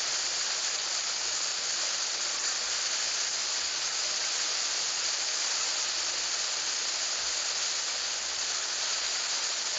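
A steady, even high-pitched hiss that does not change, with nothing else over it.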